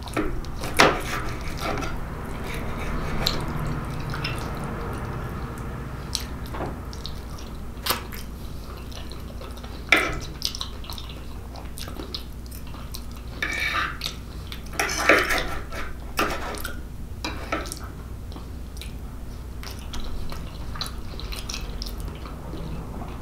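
Eating sounds: a knife and fork click and scrape as lasagna is cut, a few sharp taps, then wet chewing and lip-smacking on a mouthful of lasagna from about halfway through, over a low steady hum.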